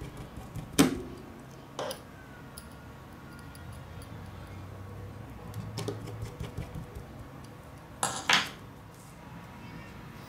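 Light clicks and taps of a plastic pry tool and fingers against an opened smartphone's frame and battery. A sharp knock comes about a second in, a run of faint ticks in the middle, and two close knocks near the end.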